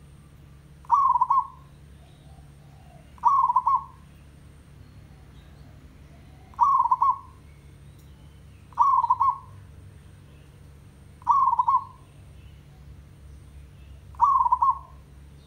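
Zebra dove cooing: six short bursts of rapid trilled notes, each about half a second long, repeated every two to three seconds.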